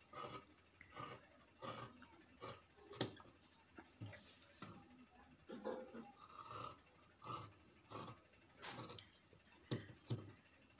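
A cricket chirping in a steady, pulsing high trill, with scattered short snips and rustles of tailor's shears cutting and handling heavy uniform cloth.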